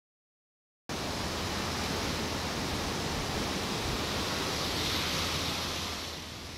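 Silence for about the first second, then a steady rush of water flowing at a river weir starts suddenly, easing a little near the end.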